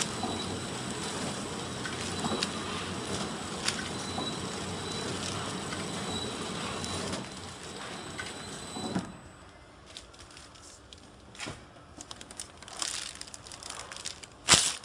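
Flow wrap packing machine running, with a steady mechanical whir, a faint high whine and a tick about every second and a quarter. The running noise cuts off about nine seconds in, leaving scattered clicks and the rustle of plastic wrapping film being handled, with one sharp crackle near the end.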